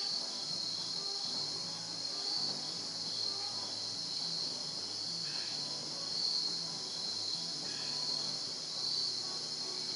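Steady, high-pitched chorus of insects trilling without a break.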